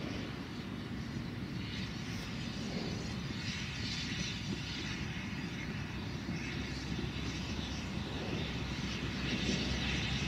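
Narrow-gauge steam train running along the line, a steady rumble of wheels and running gear that grows a little louder near the end.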